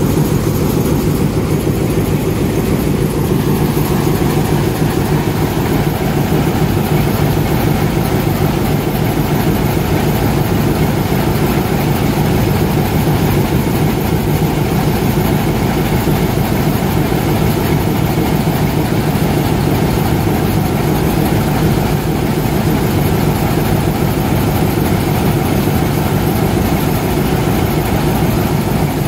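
Class M4 Alco-design diesel locomotive idling: a steady, even engine drone heard close to the engine hood. The old engine is running smoothly.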